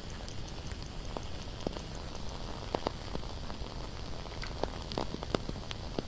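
Candle crackling: irregular sharp little pops and ticks over a steady low background hiss.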